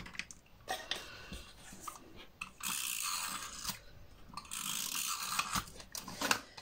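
Paper and thin cardboard being handled at a craft table: rustling and crinkling with scattered light taps and clicks.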